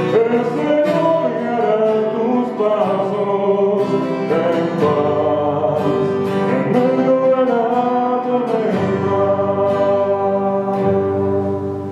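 A hymn sung to a strummed acoustic guitar, the music fading as the song ends near the close.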